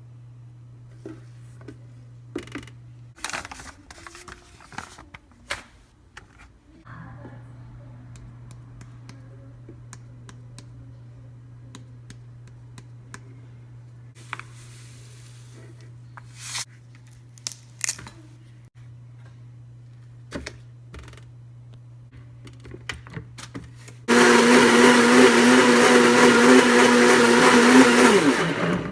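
Scattered kitchen clicks and knocks, then a blender runs loudly and steadily for about five seconds near the end, its motor pitch dropping as it stops. It is blending a shake.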